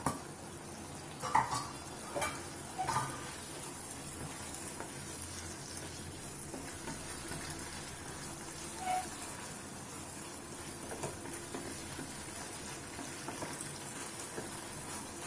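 Wooden spatula stirring and scraping thick brinjal and coriander-paste poriyal in a kadai over a high gas flame, with a steady sizzle underneath. There are a few sharper knocks of the spatula in the first three seconds, then quieter stirring. The mix is being cooked down on high heat to thicken before it comes off the stove.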